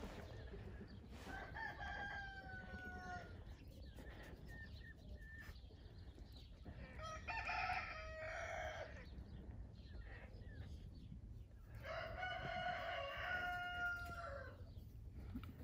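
A rooster crowing three times, each crow a drawn-out call of about two seconds that drops in pitch at its end, with the crows roughly five seconds apart.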